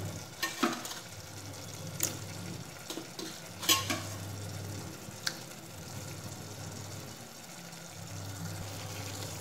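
Liver and bone pieces frying quietly in hot masala in a pressure cooker, with a soft sizzle and a few sharp clinks against the pot. A steady low hum runs underneath.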